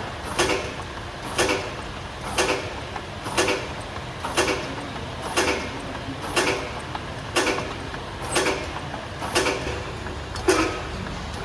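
Horizontal labelling machine running, labelling eye-drop bottles one after another: a short rattle of mechanical clicks repeats about once a second over a steady low hum.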